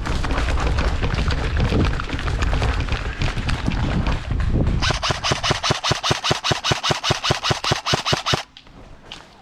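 Airsoft gun firing on full auto: dense rapid shots over heavy rumbling noise, then one long, even string of sharp shots at about nine a second that cuts off suddenly near the end.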